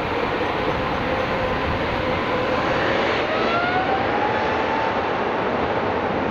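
An Airbus A350-1000's twin Rolls-Royce Trent XWB turbofans at takeoff power on the takeoff roll: a steady rush of jet noise with a thin whine that climbs in pitch about three to five seconds in.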